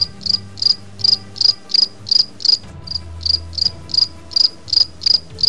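A cricket chirping steadily, short high chirps repeating evenly about three times a second, over a faint low hum.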